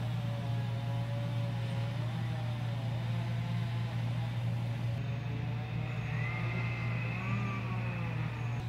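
A steady low mechanical hum, unchanging throughout, with faint wavering tones above it.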